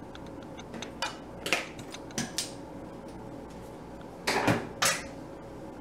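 Kitchenware clinking and clattering: a few light knocks in the first half, then a louder clatter of two or three knocks a little past four seconds in.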